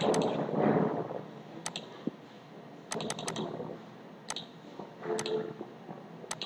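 Computer mouse and keyboard clicks: scattered single clicks at irregular intervals, with three in quick succession about three seconds in.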